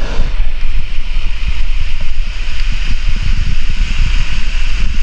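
Wind buffeting the camera microphone in loud, gusty low thumps, over a steady hiss of waves washing on the shore.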